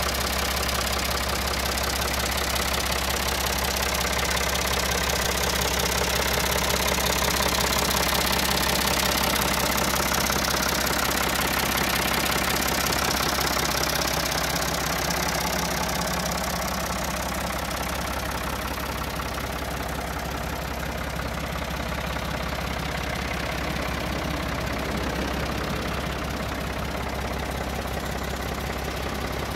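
Ford 4610 tractor's three-cylinder diesel engine idling steadily.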